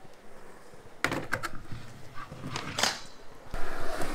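Skateboard wheels start rolling on concrete about three and a half seconds in, a steady rolling noise. Before that come a few sharp knocks and clicks.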